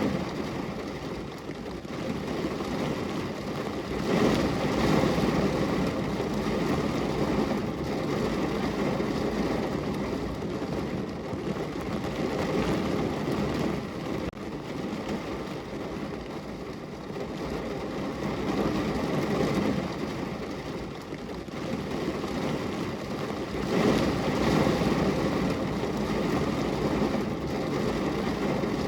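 Rain falling on a car's roof and windows, heard from inside the car: a steady, dense rumbling hiss that swells and eases every few seconds, loudest about four seconds in and again near the end.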